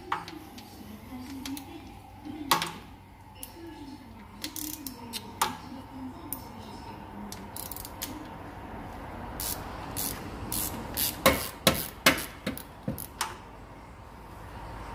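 Ratchet spanner clicking and clinking against metal as a gearbox bellhousing bolt is undone, with a quick run of loud clicks about eleven to twelve seconds in.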